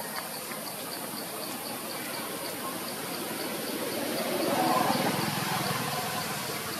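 An insect chirping in a steady high-pitched pulse, about three chirps a second, over a constant background hiss. A louder low sound swells up and fades away about four to six seconds in.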